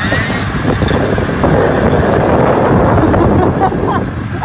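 Snowmobile engine running loud and steady, a little louder from about a second and a half in.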